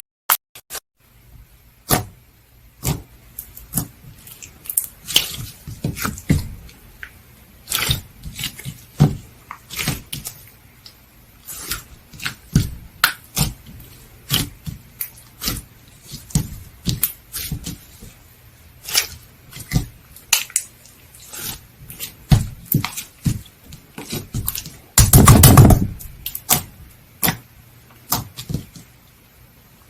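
Cream-ice slime being pressed and squeezed by hand, giving irregular sticky pops and clicks. A longer, louder squelch comes late on.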